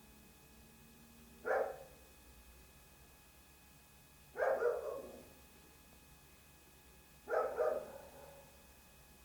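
A dog barking: three short barks or bark bursts, each about three seconds apart, the second and third a little longer than the first.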